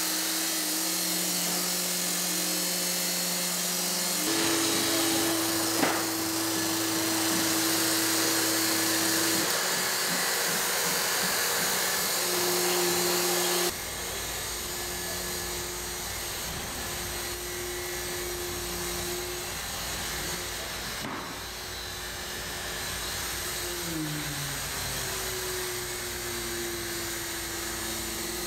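Handle warehouse robot's hydraulic pump and drive motors whining over a steady hiss as it rolls and lifts boxes. The whine holds one pitch for a few seconds, then shifts, with a falling glide near the end and one sharp click about six seconds in.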